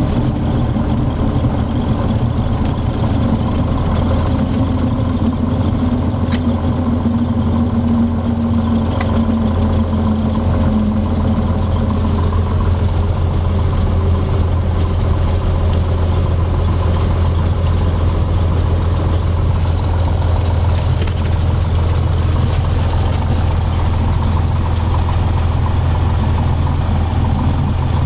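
Cessna 182's six-cylinder piston engine and propeller heard from inside the cabin, throttled back during touchdown and rollout: a steady low drone, with a slightly higher tone that fades out about ten seconds in.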